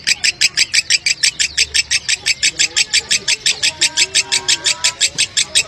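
Fischer's lovebird chattering in one long unbroken run of shrill, rapid notes, about nine a second, with no pause: the continuous 'ngekek panjang' or 'konslet' song that lovebird keepers prize.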